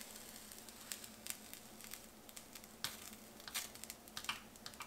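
Faint, scattered small clicks and wet taps of a plastic pasta server lifting cooked ramen noodles out of a pot of water and onto a plate, with noodles and water dripping.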